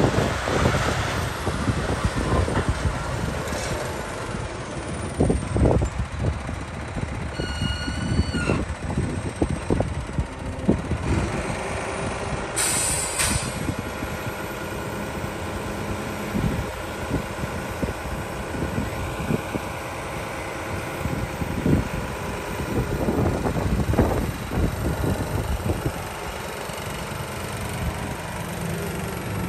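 Volvo A30F articulated dump truck's diesel engine running as it drives across dirt, with a brief high squeal around eight seconds in and a short sharp hiss of air about thirteen seconds in. The engine then settles to a steady note while the dump body is raised hydraulically.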